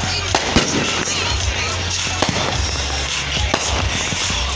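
Fireworks display: aerial shells bursting in a series of sharp bangs over continuous crackling.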